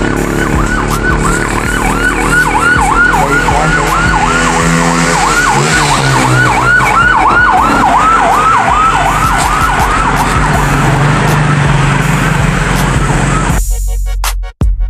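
Background electronic music with a siren-like synth tone swooping up and down, two to three times a second, over held bass notes; the track changes abruptly near the end.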